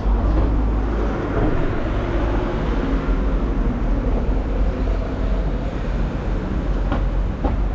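City street traffic: vehicles running past, with a heavy low rumble throughout.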